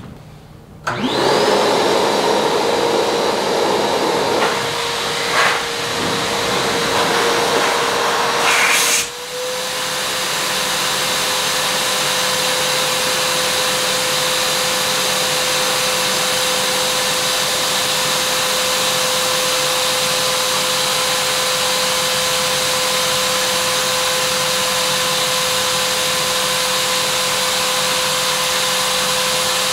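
Shop vacuum switched on about a second in, its motor spinning up and then running steadily as it blows air through its hose into an inflatable pontoon bladder. About nine seconds in, its tone rises slightly and then holds steady.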